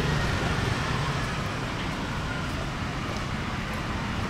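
Steady road and traffic noise of a motorbike ride through city streets.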